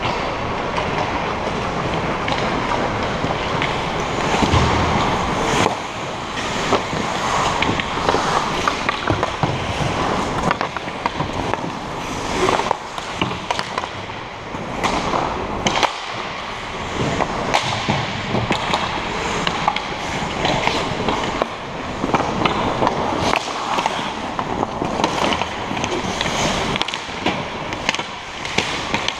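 Ice hockey skates scraping and carving across the ice, with frequent sharp clacks of sticks and puck.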